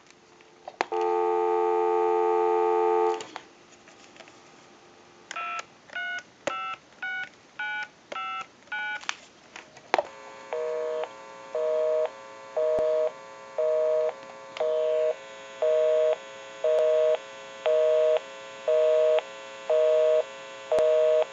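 Telephone line tones through a BellSouth Trimline phone: a steady dial tone for about two seconds, then a quick string of touch-tone (DTMF) keypad beeps as a number is dialed. About ten seconds in, a busy signal starts beeping on and off about once a second, showing that the called line is engaged.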